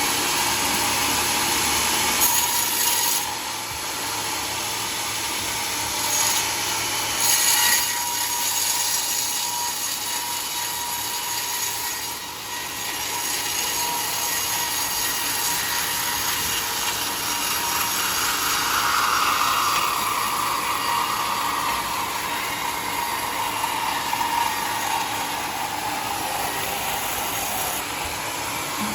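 Sawmill blade cutting through mahogany wood: a steady, loud machine-and-sawing noise with a constant whine. Over the second half a second whine slowly sinks in pitch.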